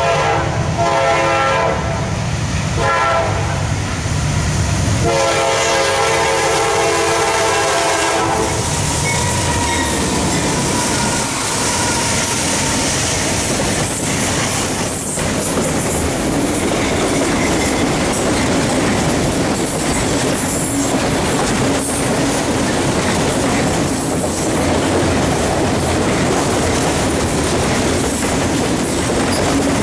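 Freight locomotive's air horn sounding three blasts, the last and longest ending about eight seconds in. Then the steady rush and clatter of a long string of autorack freight cars rolling past, wheels clicking over the rail joints.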